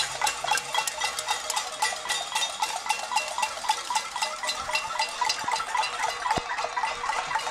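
Many saucepans and pan lids being beaten with spoons, a cacerolada protest: fast, overlapping metallic clanging with a ringing tone after each strike.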